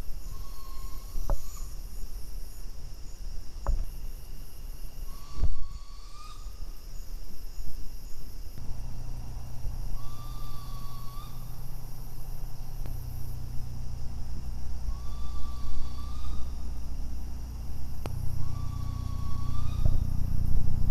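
Juvenile barred owl giving its whistle shriek: five drawn, slightly rising whistled calls about a second long, a few seconds apart, a call thought to be an alarm call. Steady insect trilling runs underneath.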